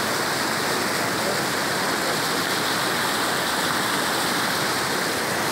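Steady rush of flowing water from the overflowing reservoir, an even, unbroken hiss.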